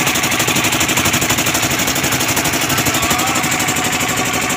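Fishing boat's engine idling with a fast, even chugging beat.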